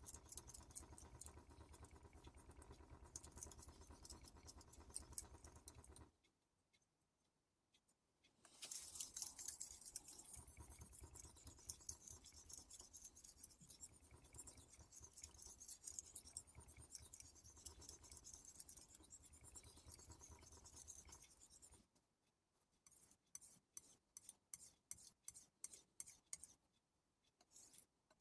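Global G-48 santoku blade stroked back and forth on a 3500-grit Chroma whetstone, polishing the edge. A fast run of scraping strokes is followed by a pause of about two seconds and another long run; near the end come slower, separate strokes about two a second.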